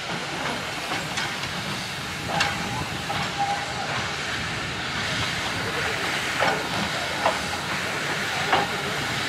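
Class B2b steam locomotive moving slowly, with a steady hiss of escaping steam. A handful of sharp clanks or knocks come from it at irregular intervals.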